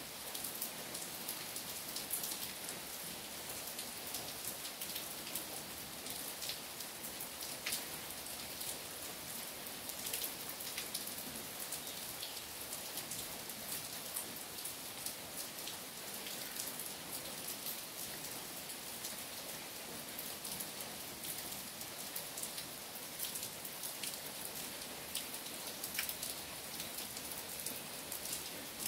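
Steady rain falling on trees and wet ground: an even hiss with many single drops landing close by as sharp ticks.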